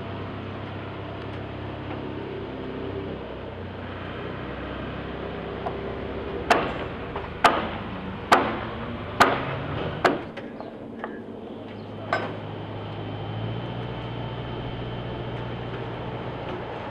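Five sharp hammer blows on the timber frame about a second apart, then a fainter sixth, over a steady low mechanical hum.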